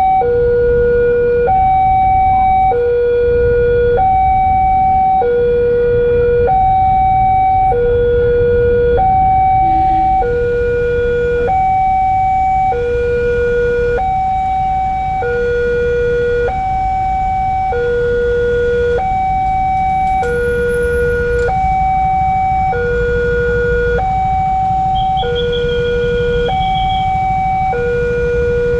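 Railway level-crossing warning alarm sounding a steady electronic two-tone, a lower and a higher note alternating about every three-quarters of a second without a break, over a low rumble of road traffic. The alarm signals that a train is approaching and the crossing is closed.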